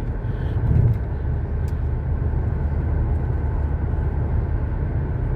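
Steady low in-cabin rumble of a 2013 Ford Police Interceptor sedan cruising, the twin-turbo V6 running at light throttle under road and tyre noise. A brief low bump about a second in.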